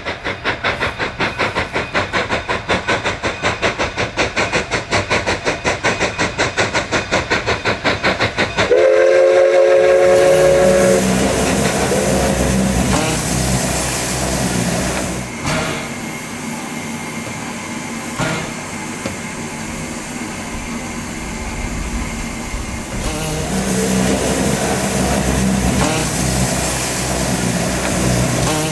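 K36 narrow-gauge 2-8-2 steam locomotive, its exhaust beating rapidly at about four to five beats a second. About nine seconds in, its chime whistle gives one long blast and then a shorter one, after which the train runs on with a steady rumble.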